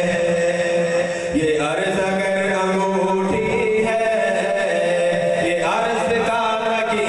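A man reciting a naat in Urdu, singing long, drawn-out notes, with slides in pitch between phrases.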